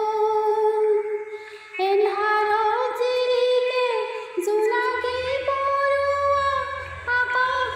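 A woman singing an Assamese song in long held phrases that step up and down in pitch, with a brief break about a second and a half in. A low steady drone sits under the voice in the second half.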